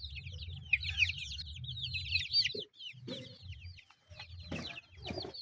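A flock of chicks cheeping: many short, high peeps overlapping, thinning out after about three seconds, over a low rumble.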